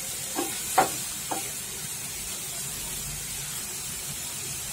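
Prawns sizzling in oil in a non-stick frying pan, with three short scrapes of a spatula stirring them in the first second and a half, then a steady sizzle. The prawns are near the end of frying, the water they released drying off.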